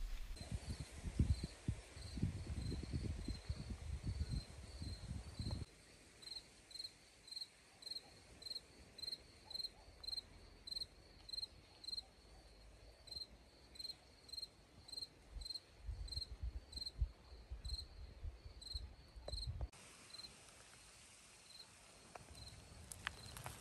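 A cricket chirping steadily, short high-pitched chirps at about two a second. A low rumble comes and goes over it, at the start and again for a few seconds near the end.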